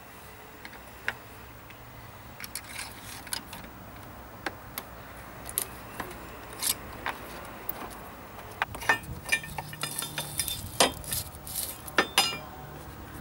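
Scattered clicks and metallic clinks of small metal objects being handled, sparse at first and coming thick and fast in the last few seconds, some with a brief ringing jangle.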